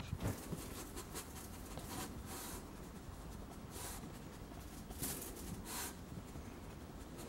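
A dog sniffing and nosing around in a narrow gap: faint, brief rustling and sniffing noises a second or two apart.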